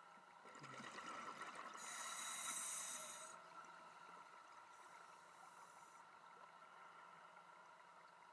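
Scuba diver breathing through a regulator underwater: a rush of exhaled bubbles builds and is loudest from about two to three seconds in, with a fainter breath around five seconds.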